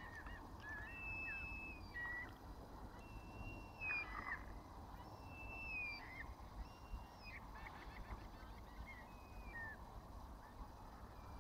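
Gulls calling: a series of high, clear cries, several held level for up to a second and dropping in pitch at the end, with shorter calls between, over a steady low rumble.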